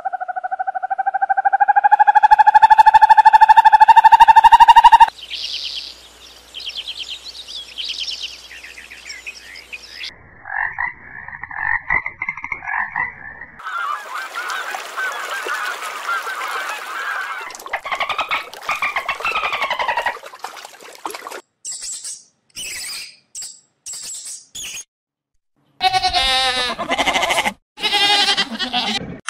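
A run of different animal calls, one clip after another, each cut off abruptly. It opens with a loud, steady, high call held about five seconds, followed by shorter, varied calls and a few brief separate ones near the end.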